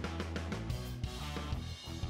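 Background instrumental music with a steady beat.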